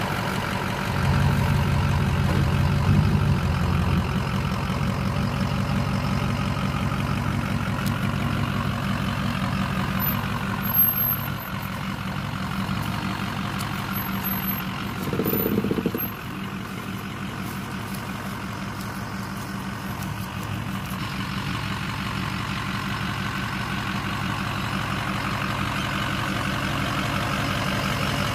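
Ford 6.0 Powerstroke V8 turbodiesel running at idle, with a short louder swell of engine sound about fifteen seconds in.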